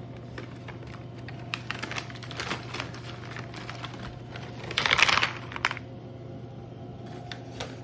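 Light clicks and taps of snacks and plastic packaging being handled and dropped into a compartmented plastic snack box, with a louder rustle of packaging about five seconds in, over a low steady hum.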